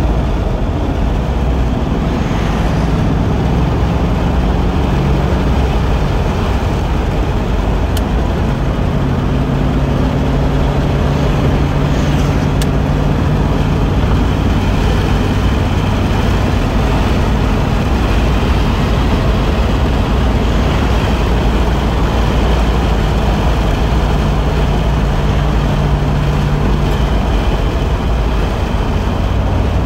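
1995 Pontiac Firebird Trans Am's 5.7-litre LT1 V8 running steadily at highway cruising speed, a continuous low drone mixed with tyre and wind noise, heard from inside the cabin.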